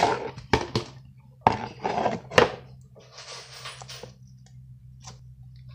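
Pink glitter slime in a plastic tub being handled and poked: a handful of sharp clicks and knocks in the first two and a half seconds, then a softer, noisy squishing for about a second.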